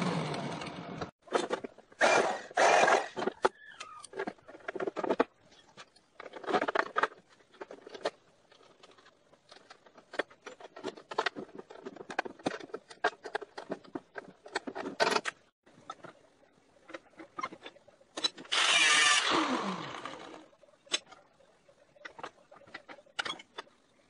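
Metal parts clanking and knocking as they are handled and fitted, with two short bursts of an angle grinder cutting. Each burst winds down in pitch as the grinder spins down: one a couple of seconds in, and a louder one about three-quarters of the way through.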